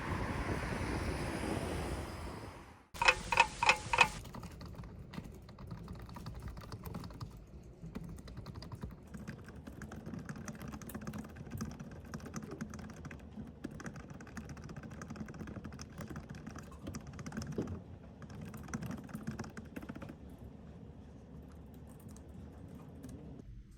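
Wind noise for a few seconds, then a quick run of electronic beeps, followed by continuous typing on a computer keyboard.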